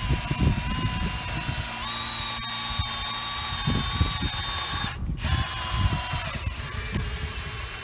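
Cordless drill driving the screw of a One-Jack lifting jack through a 7/8 socket, its motor whining steadily under load. The pitch steps up about two seconds in, and the drill stops briefly about five seconds in, then runs again. A low rumble runs underneath.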